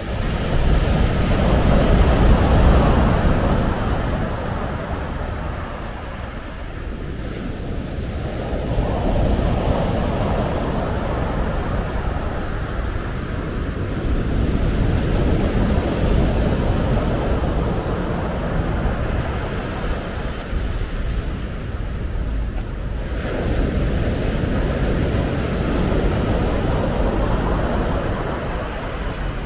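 Sea waves breaking and washing up a dark sand-and-pebble beach, the surf swelling and easing every several seconds. Wind buffets the microphone with a low rumble throughout.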